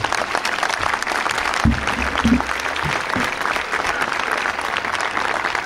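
Large crowd applauding, a dense patter of many hands, with a few brief low sounds about two seconds in.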